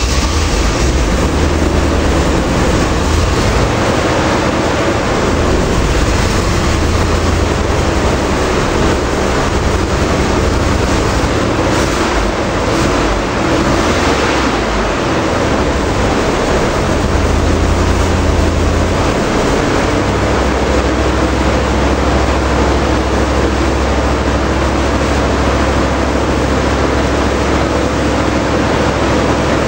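Chevy 4x4 pickup engine running steadily on its first start with a freshly installed 700R4 automatic transmission, with a deep steady hum whose pitch shifts a little partway through.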